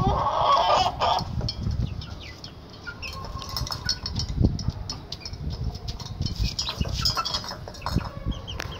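Domestic chickens clucking and moving about, busiest in the first second, with scattered short taps and low rumbling noise.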